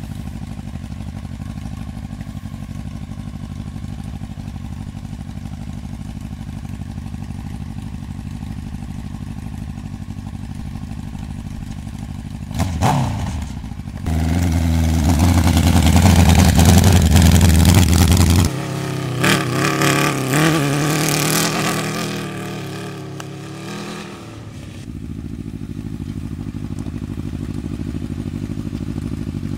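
Honda CBR1000RR superbike engine, an inline four, idling steadily in a dune buggy. It is blipped once about halfway through, then held at high revs for about four seconds, then revved up and down a few times before settling back to idle.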